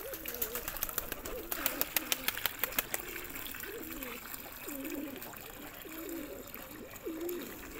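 Domestic pigeons cooing over and over, each call a low wavering coo. A quick run of sharp clicks and taps sounds during the first three seconds.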